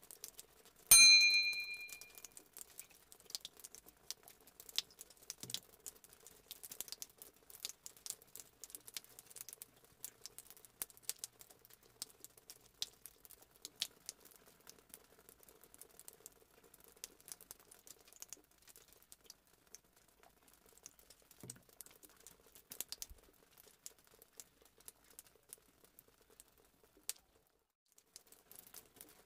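A bright electronic chime about a second in, dying away within a second, from the sound effect of a subscribe-button animation. After it, faint scattered crackles and ticks of soft sponge cake being pulled apart by hand.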